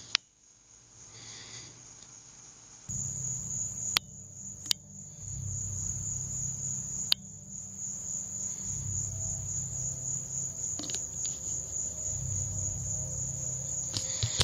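Crickets trilling steadily in one high unbroken tone, over a low steady rumble, with a few sharp clicks about four, five and seven seconds in.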